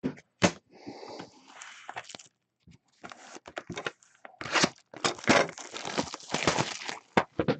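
Trading card pack wrappers crinkling and tearing as packs are ripped open, in a run of irregular crackles and rustles that grows busier in the second half.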